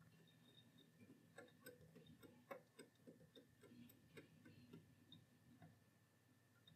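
Faint ticking from the tuning knob and dial drive of a Grundig 4006 tube radio being turned slowly, about three ticks a second. The dial is being moved up the medium-wave band toward the 1450 kHz alignment mark, and the ticking stops near the end.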